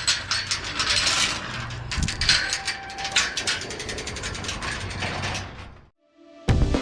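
Metallic mechanical rattling and clatter, many rapid irregular clicks and knocks, fading out about six seconds in; music starts right at the end.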